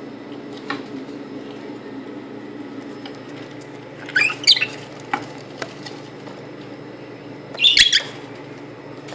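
A parrot giving short, sharp, high calls in two quick clusters, about four seconds in and again near the end, over a steady low hum.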